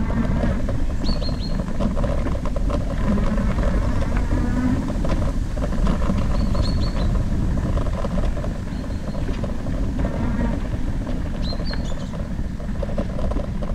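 Steady wind and tyre rumble on the camera's microphone as an e-bike rolls along a dirt trail, with a few short, high bird chirps now and then.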